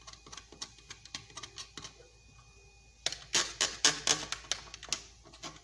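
Tool scraping and scrubbing a burnt circuit board to clean its tracks: faint scattered ticks at first, then from about halfway in louder, rapid, irregular scratchy strokes.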